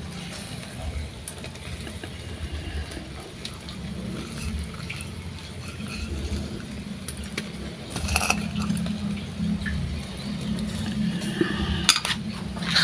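Whole marinated sea fish grilling in a wire grill basket over a charcoal fire: a steady sizzling hiss with scattered crackles, and a short louder burst about eight seconds in.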